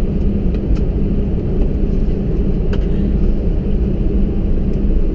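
Steady low cabin rumble of an Airbus A320-200 taxiing after landing, with a constant low hum and a few faint clicks.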